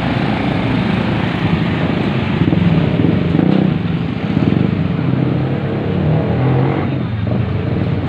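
Road traffic going past close by: vehicle engines running and tyres on the road, with the sound swelling and easing as vehicles pass.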